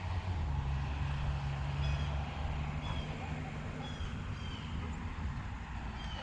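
Low engine rumble of vehicle traffic, with a steady hum through the first few seconds. Over it a bird gives short, downward-sliding chirps about once a second.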